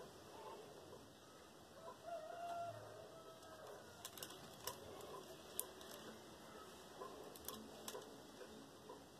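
Faint small clicks of acrylic pearl beads knocking together as beadwork on nylon thread is handled, over quiet room tone. A faint drawn-out call is heard in the background about two seconds in.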